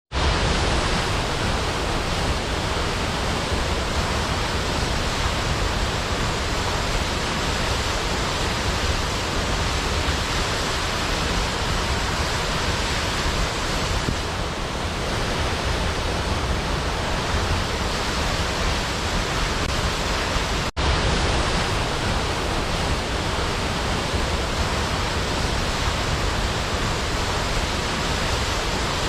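Waterfall: a steady rush of falling water with a deep rumble underneath, broken by a split-second gap about two-thirds of the way through.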